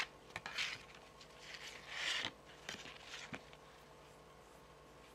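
Long fingernails scratching across the face of a stack of tarot cards in two short strokes, with a few light nail taps on the cards.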